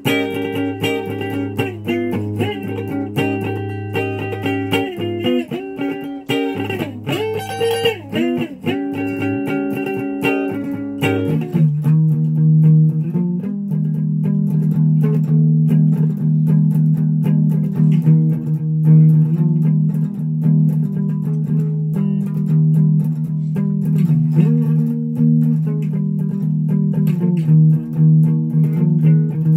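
Solid-body electric guitar being played: held, ringing notes and short melodic lines. About eleven seconds in, the playing moves to a lower held note with notes changing above it.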